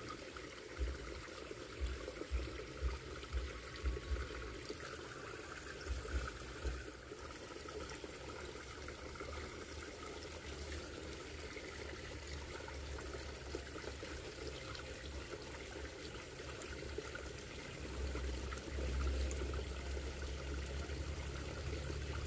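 Small shallow stream trickling over stones, a steady gentle water sound. A few short low thumps come in the first few seconds, and a low rumble near the end.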